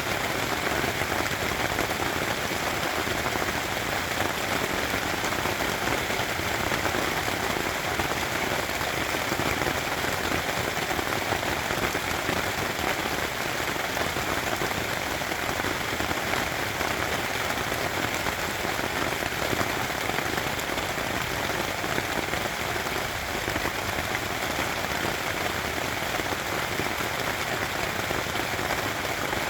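Steady rain pattering on a tent's fabric, an even, dense hiss of drops that holds at the same strength throughout.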